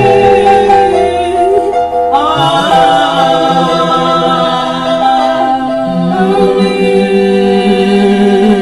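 Church choir singing a gospel hymn, holding long sustained notes, with a change of chord about two seconds in.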